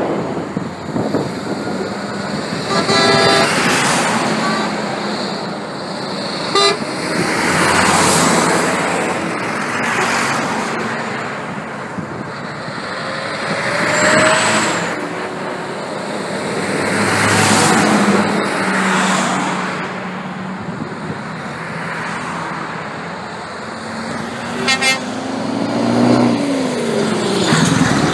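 A convoy of heavy trucks passing one after another, their diesel engines swelling and fading with each pass. Truck horns toot a few seconds in, again a little later, and near the end.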